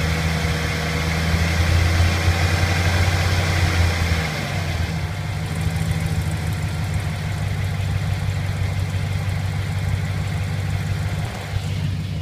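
Chevrolet Silverado 1500 pickup engine idling after a cold start, with a light ticking from the left side of the engine that the owner suspects is an exhaust leak. The engine note eases a little about four seconds in.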